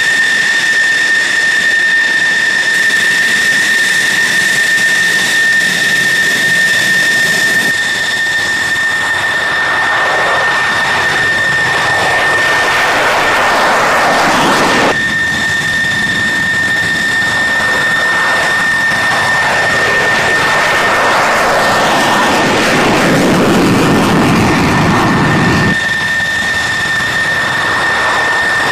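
F-16 fighter jets' afterburning turbofan engines: a steady high-pitched whine, joined by the swelling roar of afterburner takeoffs, with abrupt jumps in the sound a few times.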